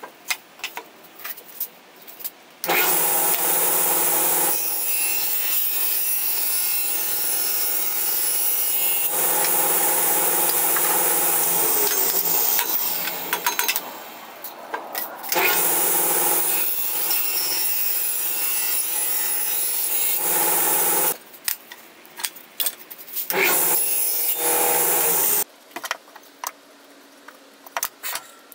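Table saw running in two long stretches, the first slowing and fading as it is switched off, then a shorter, weaker third run. Between runs there are clicks and knocks from the rip fence being set and wood being handled.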